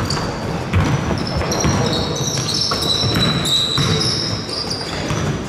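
Basketball game play on an indoor court: the ball bouncing in repeated knocks, with sneakers squeaking in short high-pitched chirps.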